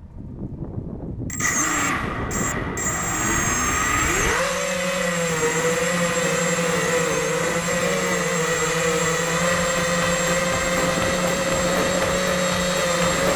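Multirotor drone's motors and propellers starting up about a second in, their pitch rising over the next few seconds, then holding a steady whine as the drone lifts off and climbs.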